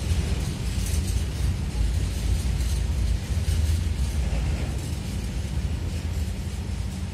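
Freight train rolling past: loaded car-carrier wagons running steadily over the rails with a low rumble.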